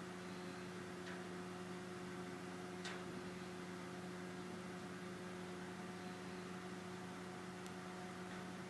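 Steady low electrical hum with a faint hiss underneath, broken by three faint clicks.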